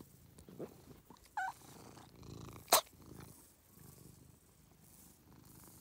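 Grey tabby cat purring steadily close to the microphone while being petted. A brief high chirp comes about a second and a half in, and a single sharp click, the loudest sound, about three seconds in.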